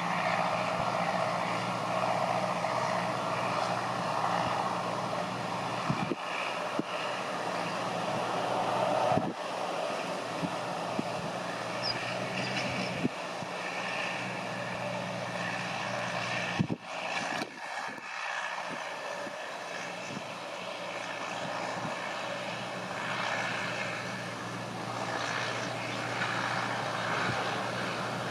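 New Holland T5050 tractor's diesel engine running steadily under load while pulling a three-furrow reversible plough, with a few brief breaks and knocks.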